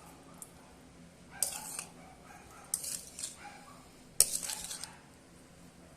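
Metal kitchen utensils clinking and scraping against pots and dishes: four sharp clinks a second or so apart, each ringing briefly.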